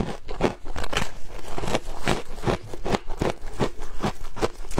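Close-up crunching of frozen shaved ice being bitten and chewed, a quick run of crisp crunches at about four a second.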